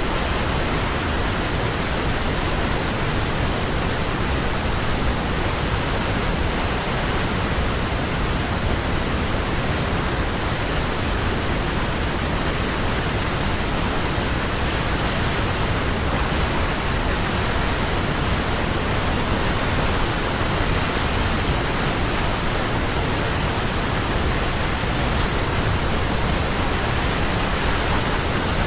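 Waterfall, water falling and splashing in a steady, unbroken rush.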